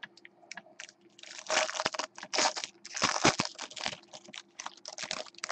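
Foil wrapper of a trading-card pack crinkling and tearing as it is ripped open by hand, in irregular crackly bursts.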